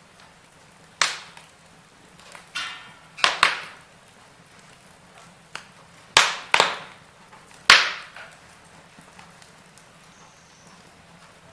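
Wood fire crackling in a fireplace: about seven sharp pops and snaps at irregular intervals, the loudest around six and eight seconds in, over a faint steady hiss.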